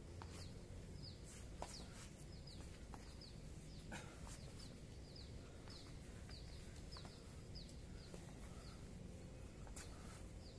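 Faint outdoor background with a small bird repeating short falling chirps, about two a second, and a few faint clicks.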